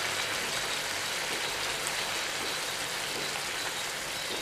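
Chicken pieces in masala and water cooking in a pan over a medium gas flame: a steady sizzling hiss.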